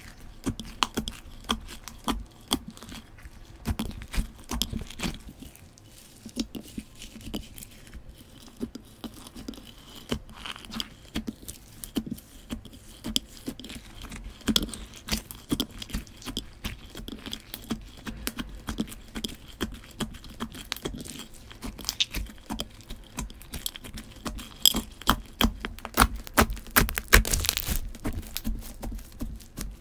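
Crunchy slime packed with beads being kneaded and pressed by hand: a continuous stream of small crackles and pops. It grows denser and louder near the end.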